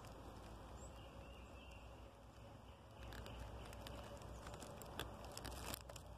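Faint rustling of dry grass close to the microphone, with scattered light clicks and a low rumble that grows a few seconds in.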